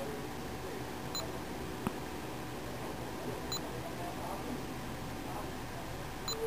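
Nikon Coolpix S230 compact camera giving three short, high electronic beeps, two to three seconds apart, as its touchscreen menu is tapped, with a single soft click between the first two. Steady background hiss throughout.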